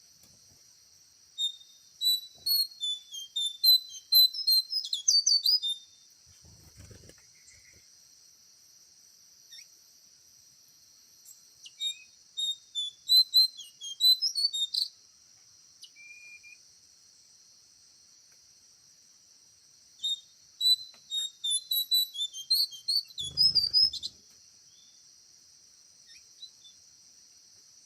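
Small bird chirping and twittering in three quick bouts of high, rapid notes, a few seconds apart. Under it runs a steady high-pitched insect drone, and there are two soft low thumps.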